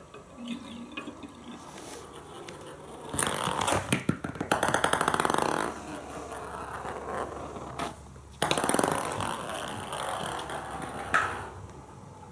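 Kittens playing on a hardwood floor: paws scampering and scuffling, and small toy balls knocking and rolling, in several irregular bursts.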